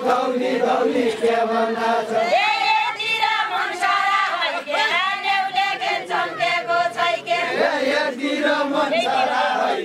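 A group of women singing a Deuda folk song together, unaccompanied, in a chanted unison line that carries on without a break.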